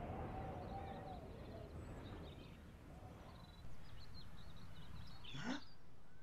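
Animated-film ambience: a steady outdoor noise bed with small birds chirping. Near the end comes one short swooping sound effect.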